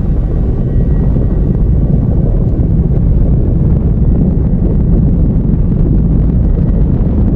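Loud, deep rumbling roar of violent wind: a tornado striking. It builds a little over the first couple of seconds, then holds steady.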